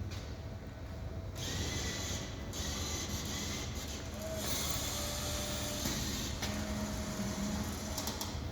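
Necta Canto Touch coffee vending machine working through a drink cycle: a steady mechanical hum and whir, with a hiss that starts and stops several times.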